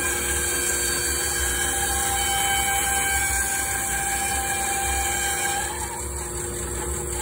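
Woodworking power machinery running steadily together with a shop vacuum, a loud mechanical drone with several held tones, dipping briefly and shifting in pitch about six seconds in.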